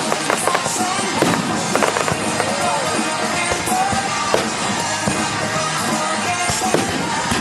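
Music playing, with many fireworks crackling and popping over it.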